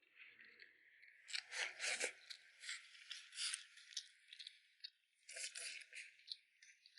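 Eating sounds up close: food being chewed and crunched in irregular crackly bursts.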